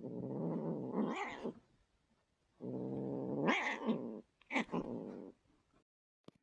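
Young cat growling in long, low growls, three of them, each rising into a higher yowl: an angry cat. A faint click near the end.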